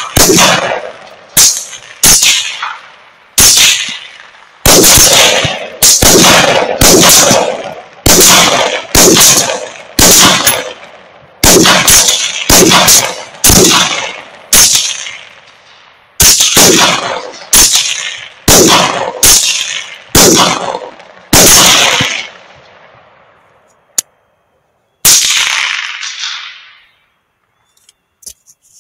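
Rapid rifle fire at feral hogs from two shooters side by side, one rifle suppressed and one unsuppressed. The shots come about once or twice a second, often in quick pairs, each with a ringing echo tail. After a lull near the end comes one more shot.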